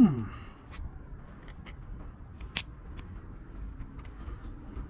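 Scattered light clicks and taps of hand tools and metal parts being handled while a part is worked off an engine. The sharpest click comes about two and a half seconds in.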